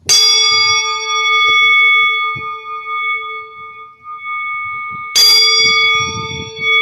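Singing bowl struck twice, about five seconds apart, each strike ringing on in several steady, slowly wavering tones.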